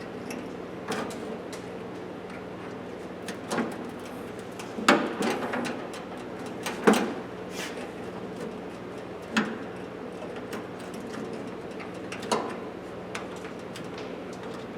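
Clanks and scrapes of a steel Craftsman toolbox's drawers being worked out and taken apart: about half a dozen separate knocks, the loudest about five and seven seconds in.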